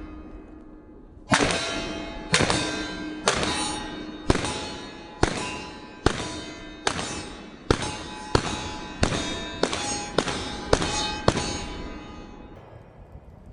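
A string of fourteen pistol shots, each followed by the ringing of steel targets being hit. The shots come about a second apart at first and get quicker toward the end as the shooter closes in on the targets.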